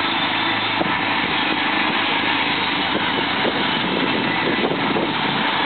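Steady drone of an electric air blower keeping an inflatable bungee-basketball arena inflated.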